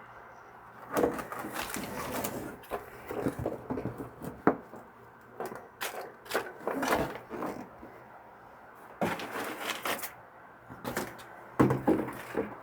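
Plastic hydroponic-kit parts being handled and fitted together: irregular clicks, knocks and rustling, in several short clusters.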